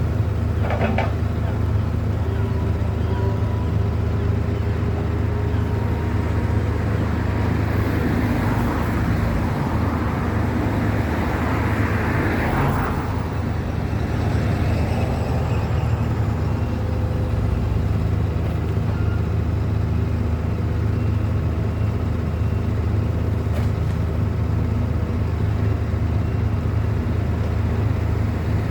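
Steady low engine drone from a running motor vehicle, with a rushing swell that builds and fades about eight to thirteen seconds in.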